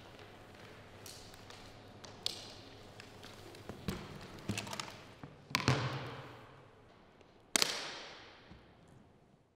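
Footsteps and handling knocks of a performer settling in before playing, echoing in a large reverberant hall. A few light taps come first, then two louder knocks about two seconds apart, each with a long echoing decay.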